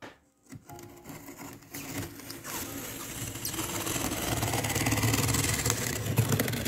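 Snap-off utility knife blade slicing through packing tape and cardboard along the edge of a box, a dense crackle of fine ticks that grows louder about halfway through.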